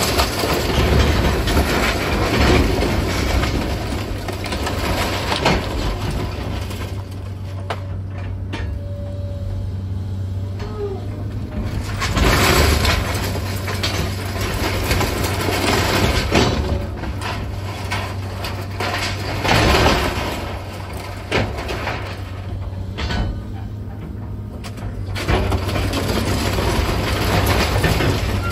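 Diesel engine of a Komatsu 200 excavator running steadily under load, with bursts of crunching and clattering demolition debris several times as the house is torn down and loaded.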